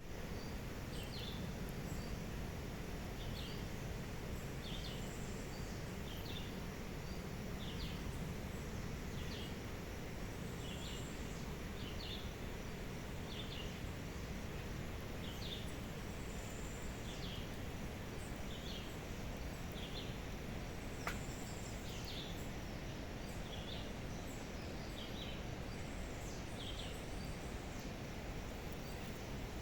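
Outdoor natural ambience: a steady low background noise with a short high chirp repeating roughly once a second from some small animal, and a single sharp click about two-thirds of the way through.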